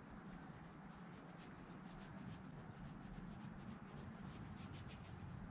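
Faint, scratchy strokes of a paintbrush working oil paint on a linen canvas: a quick run of short brushing sounds, busiest about four to five seconds in.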